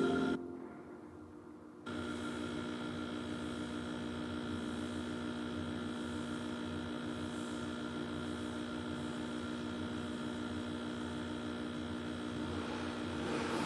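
Steady electrical hum made of several level tones from an old CRT television's speaker, with a still caption card on screen. It sets in about two seconds in, after the ident music cuts off and a brief quieter gap.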